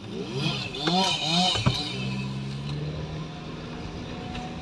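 Car engine running steadily as the car moves off, after a faint voice and a sharp click about a second and a half in.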